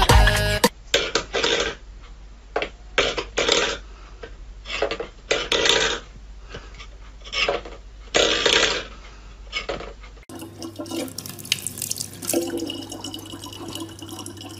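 Metal pet bowls scraping and clattering on a wooden floor in irregular short bursts as a cat paws at them. About ten seconds in this cuts to a tap running a thin steady stream of water.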